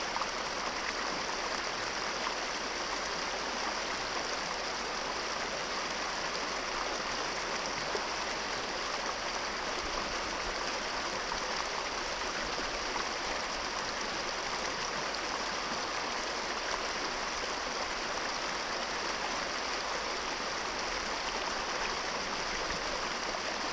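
Small rocky brook running over a riffle: a steady rush of water with no breaks.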